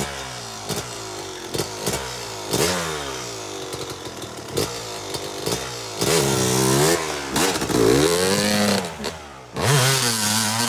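Yamaha YZ250 two-stroke dirt bike engine ticking over with sharp pops about once a second, then revving hard, its pitch rising and falling twice from about six seconds in. It revs up again near the end as the bike pulls away through the snow.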